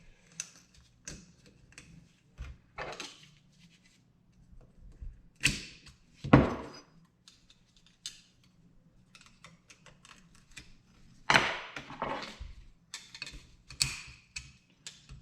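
Metal motorcycle fork parts and tools being handled as a retaining clip is worked into the fork tube. Scattered clicks and taps, with a few louder knocks about five or six seconds in and again at about eleven seconds.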